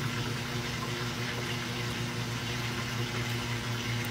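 Steady low mechanical hum over a faint hiss, from a motor running continuously.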